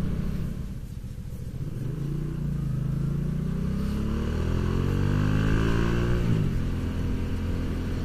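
Motorcycle engine under way. After a dip about a second in, its pitch climbs steadily for several seconds as it accelerates, drops suddenly about six seconds in, and then runs on steadily.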